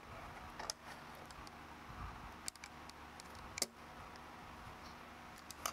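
A few light, scattered clicks of small metal screws and a T-handle hex driver as an aluminium beam bracket is screwed onto an ABS plastic plate.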